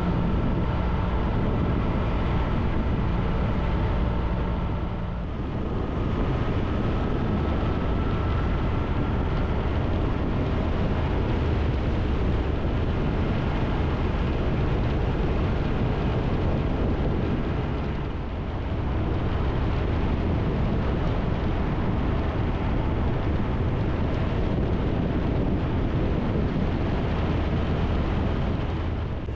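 Triumph Tiger 1200's three-cylinder engine running at road speed, heard under steady wind rush and tyre noise. The sound dips briefly twice, about 5 and 18 seconds in, and after the first dip a faint tone rises.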